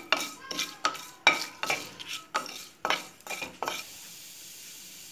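Wooden spatula stirring a tempering of dried red chilli, urad dal, mustard seeds and cumin in hot oil in an aluminium kadai: a quick, uneven series of scrapes and knocks against the pan, stopping about three and a half seconds in, leaving a steady soft sizzle of the oil.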